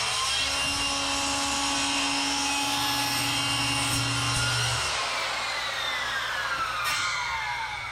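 A power tool running at speed with a steady whine, then switched off about five seconds in and spinning down, its whine falling slowly in pitch as it fades.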